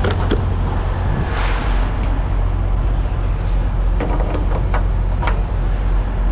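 Steady low drone of an idling semi-truck diesel engine. About a second and a half in there is a short hiss, and there are several sharp clicks or clanks near the start and again about four to five seconds in.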